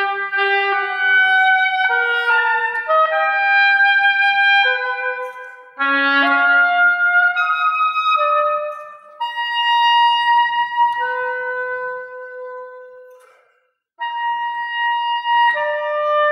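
Extended-range oboe (Loboe) playing a slow solo line of held notes at changing pitches. The sound fades away to a brief silence about three-quarters of the way through, then the next note begins.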